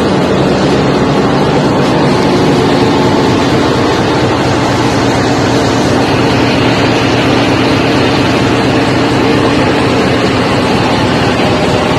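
Large engines and generators running in a ship's engine room: a loud, steady drone made of many constant, layered pitches.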